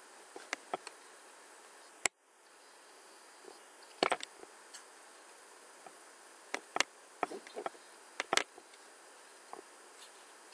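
Computer mouse clicks, a dozen or so sharp single clicks and quick clusters, over a faint steady microphone hiss, as spreadsheet cells are selected and reformatted.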